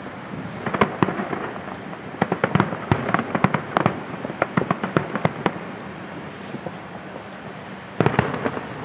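Aerial fireworks shells bursting in rapid volleys of sharp bangs and crackles, thinning out to a lull after about five seconds, then a fresh cluster of bangs near the end.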